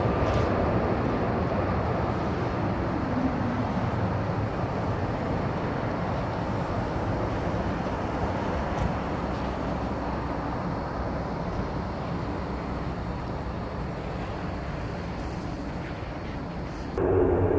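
Lockheed C-130J Hercules's four turboprop engines passing low on landing approach: a broad rushing drone that slowly fades, with a falling tone a couple of seconds in. Near the end the sound jumps abruptly to a louder, steadier hum.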